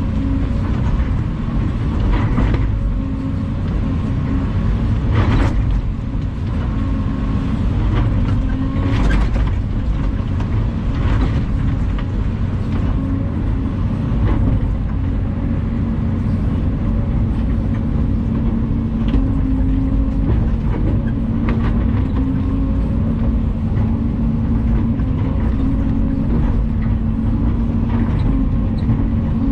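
Volvo EC220 excavator's diesel engine running steadily under work, with several sharp knocks at intervals as the machine works.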